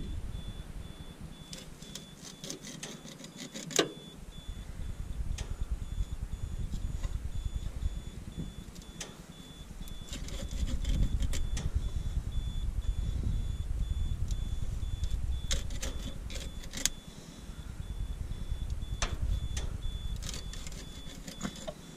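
Plastic net wrap rustling and crackling as it is tugged by hand off a round baler's rollers, with scattered clicks over a low, uneven rumble. A fast, steady electronic beeping runs underneath.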